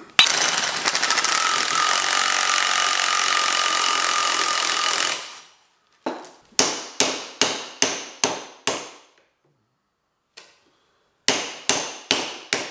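A power tool runs steadily for about five seconds, then stops. A run of sharp, ringing metal taps follows, about seven in quick succession, then four more near the end, as a bearing is seated on an electric motor's rotor shaft.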